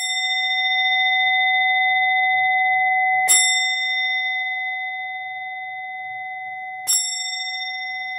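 A meditation bell struck three times, about three and a half seconds apart. Each strike rings on in a long, steady tone that fades slowly.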